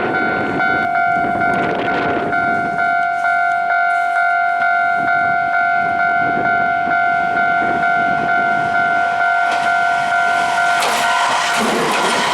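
Japanese railway level crossing warning bell ringing in a steady, rapidly repeating two-tone pattern. Near the end a train runs into the crossing with a loud rolling rumble and wheel rattle.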